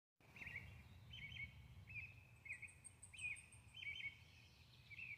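Faint birdsong: one bird repeats a short chirped phrase about every three-quarters of a second, and a thin, high trill from another bird joins briefly about halfway through, over a low steady rumble.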